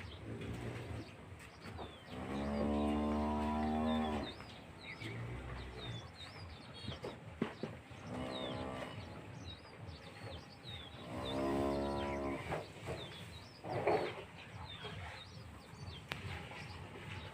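Dairy cattle mooing: two long moos, each about one and a half to two seconds, with a shorter call between them. Small birds chirp throughout.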